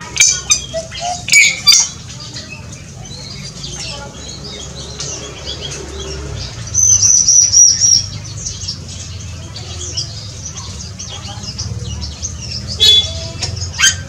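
Aviary birds chirping and calling: sharp chips in the first two seconds and again near the end, and a thin high call held for about a second around seven seconds in, over a steady low rumble.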